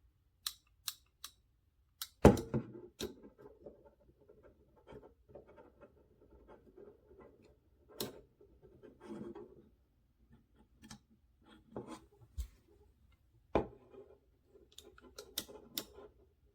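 A RoverTac folding multitool being handled: a series of sharp clicks, the loudest about two seconds in, among soft rubbing and rustling.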